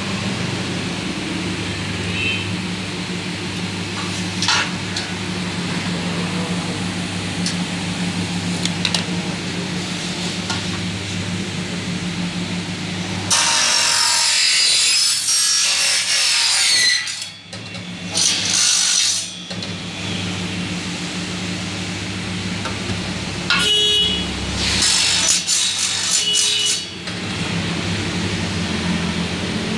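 Aluminium profile cutting saw running with a steady hum, then three loud, high screeches as its blade cuts through aluminium window profile. The first and longest cut comes a little before halfway, and the last comes in the final third.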